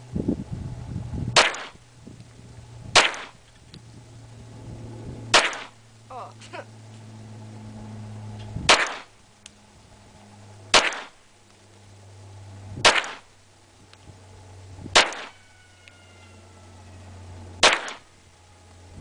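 Glock pistol fired in slow single shots: eight sharp reports, one roughly every two seconds, with a steady low hum underneath.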